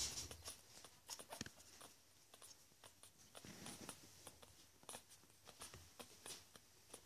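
Near silence with faint, irregular little clicks and smacks from nine-day-old bichon frise puppies suckling at their mother's teats, and a soft shuffle about three and a half seconds in.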